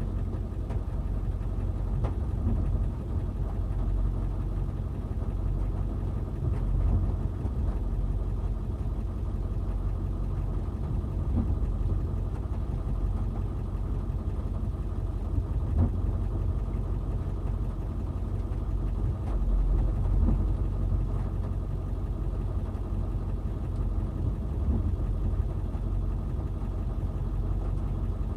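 Backhoe engine running steadily, its level swelling and easing a little as it works.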